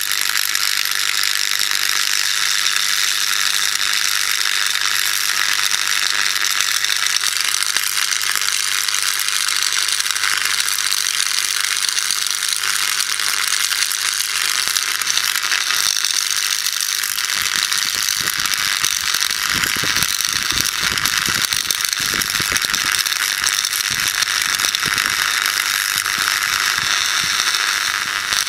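High-voltage arcing from a microwave-oven transformer across wet soil and iron sand in a ceramic mug: a steady, loud crackling buzz as the current arcs through the moisture on the mud and ceramic and drives off steam. A low mains hum stops about two thirds of the way in, after which irregular low thumps come through under the crackle.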